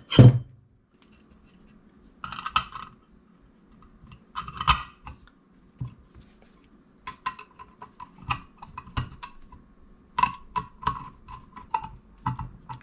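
Metal-on-metal clinking as a steel cover plate is fitted onto a metal octagon electrical box and its screws are tightened with a screwdriver. A sharp knock at the start and two short rattles come first. From about seven seconds in there is a run of quick clicks.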